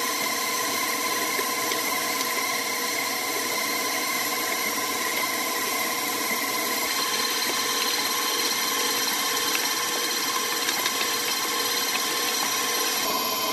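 Electric mixer motor running steadily with a constant whirring hum, beating cookie batter. Its tone shifts slightly about seven seconds in.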